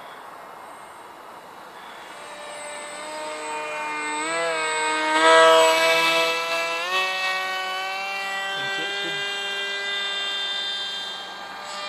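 Whine of a small electric RC jet's 2400 kV brushless motor and 4.75-inch pusher prop in flight. It grows louder to a peak as the plane passes close overhead about five seconds in, steps up in pitch twice, then holds a higher steady whine.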